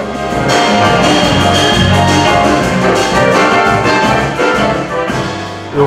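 Large instrumental ensemble of horns, strings and guitars playing together in rehearsal, holding full sustained chords that die down near the end.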